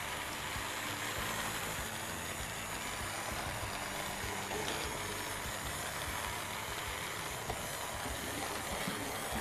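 Electric hand blender running steadily down in a large pot of thick, hot harees, breaking down the soaked wheat grains and meat into a smooth porridge.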